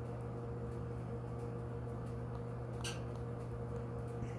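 Steady low hum of an electrical workbench room tone, with one brief faint tick about three seconds in.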